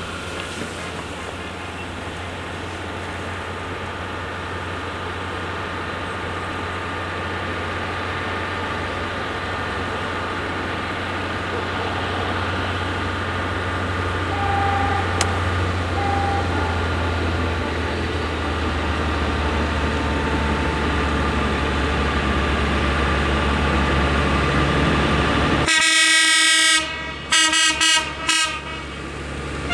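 Diesel tractor engines running in a steady low drone that grows louder as the lit-up tractors approach. Near the end a loud horn sounds in several short blasts.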